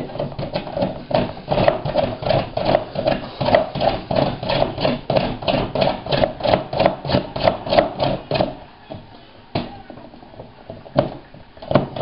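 A large chocolate bar scraped rapidly up and down a metal box grater, at about three to four rasping strokes a second. The strokes stop for a couple of seconds with a single click, then start again near the end.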